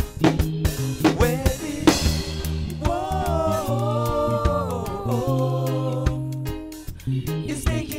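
Live Afropop band music: a male lead singer sings long held notes into the microphone over bass, keyboard and percussion hits.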